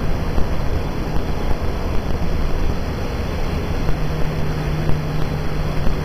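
Intercity passenger train's coaches rolling slowly past: a steady low rumble with wind on the microphone. A low steady hum comes in about four seconds in and holds for about two seconds.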